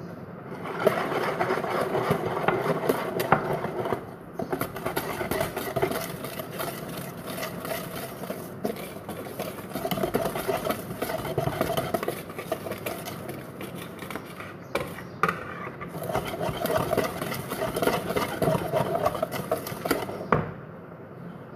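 Wire whisk beating cake batter in a mixing bowl as flour is worked in: a fast, continuous run of scraping and clattering strokes that stops briefly a few times.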